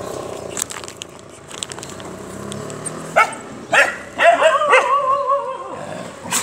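Stray street dogs barking and whining, begging to be fed: two sharp yelps about three seconds in, then a run of barks and a longer, wavering whine.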